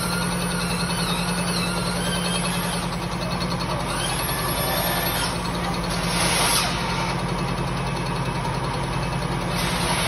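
Cylinder-head resurfacing machine running steadily, its large disc cutter skimming the face of a Renault B4D cylinder head: a constant hum under thin high whines that shift in pitch, with a brief hiss about six seconds in.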